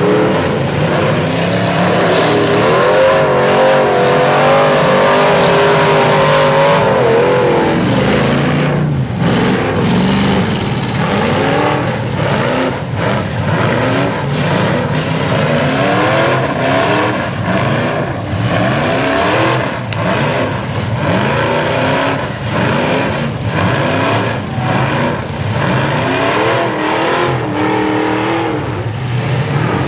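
Several demolition-derby pickup truck engines revving hard, their pitch wavering and rising and falling as the trucks accelerate, with repeated sudden crashing impacts of the trucks ramming each other from about eight seconds in.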